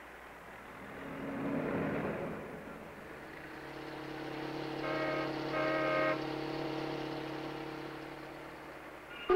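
Cartoon traffic sound effects: a car passing, its noise rising and falling about a second in, then a steady engine drone. Two short car-horn toots come about five seconds in.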